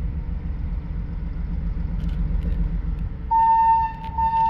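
Diesel train approaching with a steady pulsing engine rumble, then sounding its horn about three seconds in: one loud steady tone, broken briefly and taken up again near the end.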